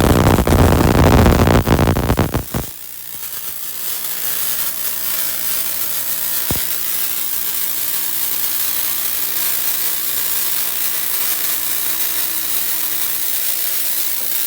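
Tesla coil with an air-blown spark gap firing with a loud, dense crackle of sparks, cutting off abruptly after about two and a half seconds. A steady hiss of blown air and a faint hum carry on after it, with a single sharp click about six and a half seconds in.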